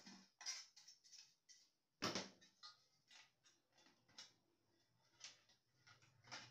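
Irregular small clicks and taps of printer parts and tools being handled during disassembly, with one louder knock about two seconds in.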